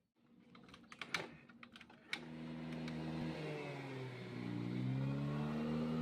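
Yamaha Fascino scooter being started after a no-start repair: a couple of seconds of clicking and cranking, then the single-cylinder engine catches about two seconds in and runs, its speed dipping and rising again.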